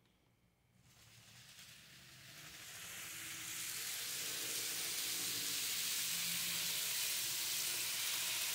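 N-scale model train running along the track: a steady, rushing hiss of metal wheels on rail with a faint motor hum, building up over the first few seconds, then holding steady.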